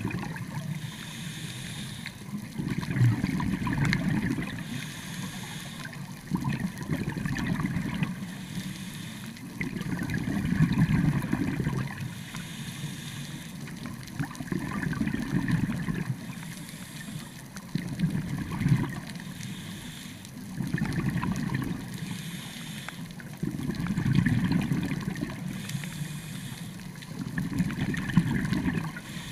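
Scuba diver breathing through a regulator underwater: a hiss on each inhale alternates with a gurgling burst of exhaled bubbles, in a steady cycle about every three to four seconds.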